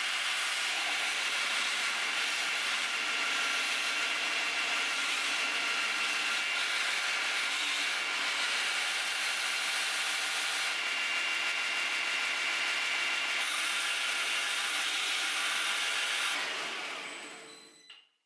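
Belt grinder running while the face of a 1045 steel hammer head is ground against the belt: a steady grinding hiss with motor tones through it, fading out near the end.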